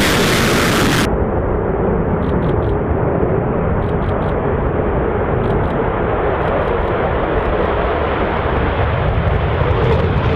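Jet aircraft engine noise, a loud steady rush that turns duller about a second in.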